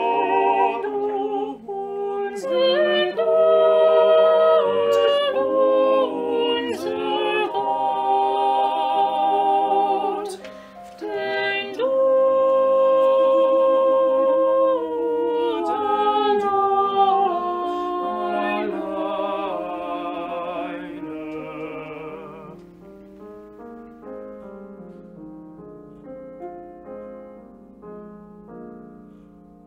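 A small vocal ensemble of four mixed men's and women's voices sings a slow prayer in harmony, with vibrato. About two-thirds of the way through the voices stop, and the music trails off quietly.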